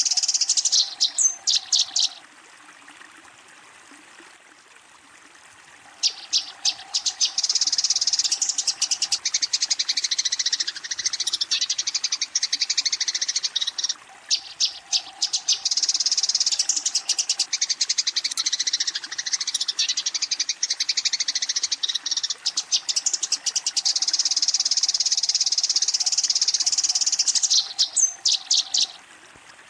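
Eurasian tree sparrows chattering in long bouts of rapid, high chirps, with a pause of a few seconds near the start: the agitated fighting call that sparrows use to challenge a rival.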